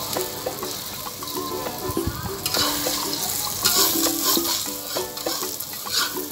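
Omelette of beaten egg and cha-om frying in plenty of hot oil, with a steady sizzle, while a metal spatula scrapes and presses against the pan, making short clicks.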